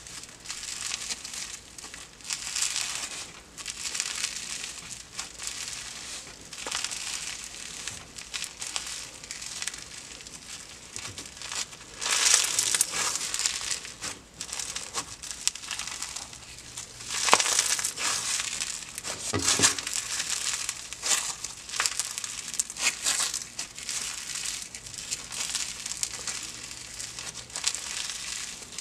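Crunchy clear-based floam slime packed with microfoam beads being squeezed and mixed by hand, giving a continuous run of crackling, popping crunches with a few louder swells.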